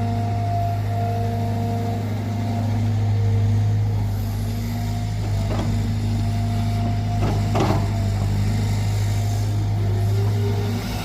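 Cat 320GC excavator's diesel engine running steadily at working revs, with a steady hydraulic whine that fades out a few seconds in. Two brief clanks come in the middle.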